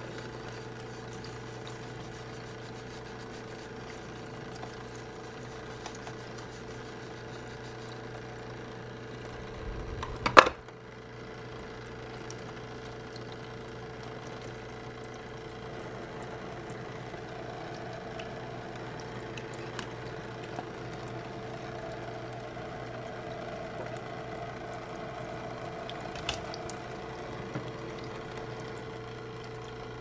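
Toy play sink's small water pump humming steadily while water trickles from its faucet over fruit being washed. A single sharp knock about ten seconds in is the loudest sound, with a few faint clicks elsewhere.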